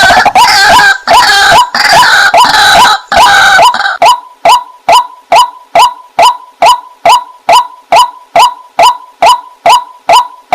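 White-breasted waterhen (the 'wak-wak' bird) calling loudly: a fast jumble of overlapping croaking notes, then from about four seconds in a steady run of single 'wak' notes, a little over two a second.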